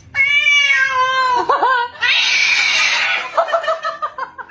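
Domestic cat screaming: a long drawn-out wail that falls slightly and bends near its end, then a harsh noisy screech, then a run of short choppy calls.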